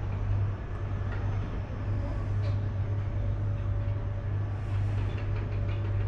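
Steady low hum and rumble inside a moving cable car gondola, with a faint steady whine running through the middle of it.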